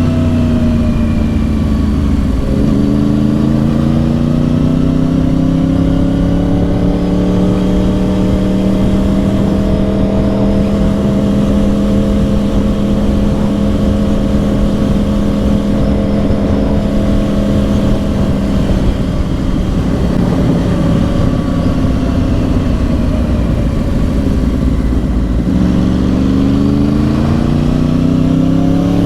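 2010 Yamaha R1's crossplane inline-four with dual Yoshimura exhausts, running under way. The engine note dips and then climbs again about two seconds in. It holds fairly steady through the middle and eases off slowly. Near the end it dips and climbs again.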